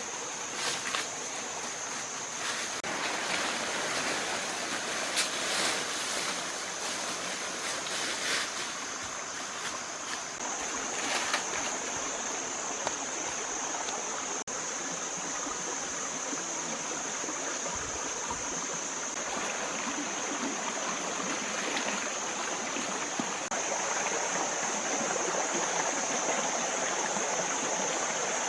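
Running water, like a stream, with a steady high-pitched hiss or buzz throughout and some scattered crackling or rustling in the first half.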